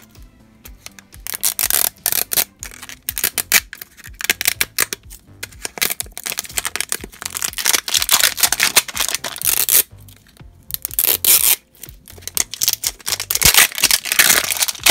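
Plastic wrapping being torn and peeled by hand off a toy capsule ball, crinkling and crackling loudly in bursts with short pauses.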